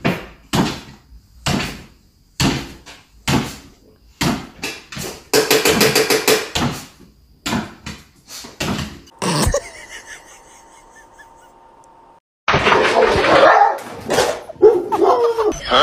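French bulldog barking in short, sharp barks about one a second, excited as its food is prepared. After about nine seconds the barking stops; a quiet stretch follows, then a louder, noisy sound near the end.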